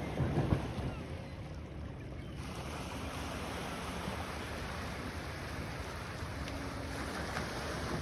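Small lake waves washing onto a pebble beach as a steady rush, with wind buffeting the microphone, strongest about half a second in.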